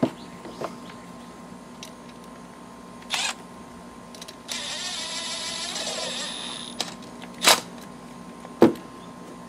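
Cordless power driver spinning as it runs down the hold-down bolt of a new ignition coil: a short burst, then a steady whir for about two seconds. Two sharp knocks of metal on metal follow near the end, louder than the whir.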